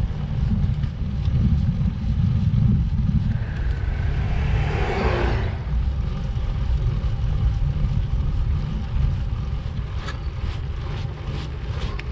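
Wind buffeting the microphone of an action camera on a moving road bike: a steady low rumble, with a brief rushing swell about four to five seconds in.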